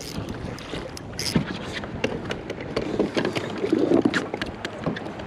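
Someone scrambling in a hurry along a rocky riverbank with the camera knocking about: a rapid, irregular jumble of knocks and scuffs over a steady rushing noise.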